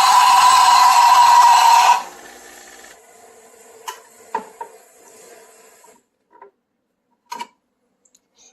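Espresso machine steam wand frothing milk: a loud hiss with a steady tone running through it, shut off sharply about two seconds in. A few light knocks follow.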